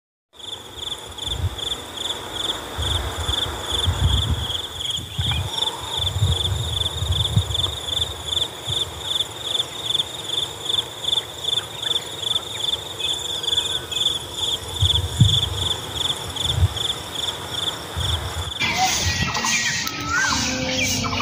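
Crickets chirping in a steady, even pulse, a few chirps a second, over scattered low thumps and rumbles. Near the end the crickets stop and bird chirps take over.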